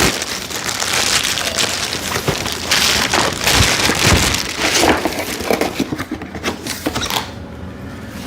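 Toy packaging and a fabric backpack being handled and unfolded, giving dense crinkling and rustling that thins out near the end.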